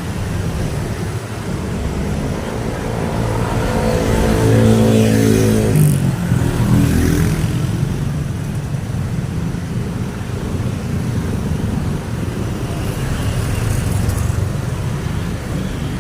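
Steady road traffic, with one louder motor vehicle passing close by about four to seven seconds in, its engine tone climbing as it approaches and dropping as it goes past.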